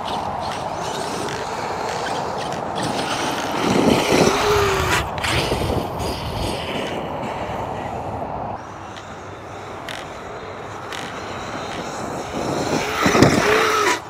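ARRMA 8S RC basher truck driving on dirt, its brushless motor whine rising and falling under throttle about four seconds in and again, louder, near the end.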